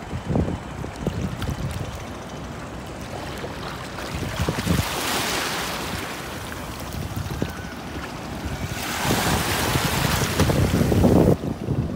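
Small waves washing up the sand and foaming over bare feet at the water's edge. Two swells of rushing surf come about four and nine seconds in, the second cutting off suddenly near the end. Wind buffets the phone's microphone throughout.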